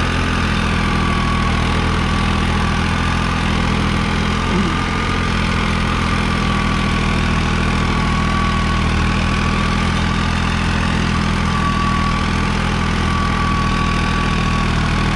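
New Holland 3630 Plus tractor's three-cylinder diesel engine running steadily under load while driving an 8-foot rotavator through the soil, with a steady whine over the engine note.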